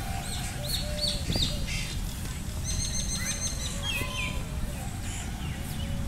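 Small birds chirping and calling, several overlapping, with short arching notes and a quick run of repeated high notes about halfway through, over a steady low rumble.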